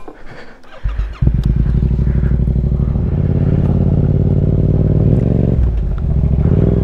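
Motorcycle engine starting about a second in, then the bike pulling away: the engine note climbs, drops briefly near the end as it shifts, then runs on steadily.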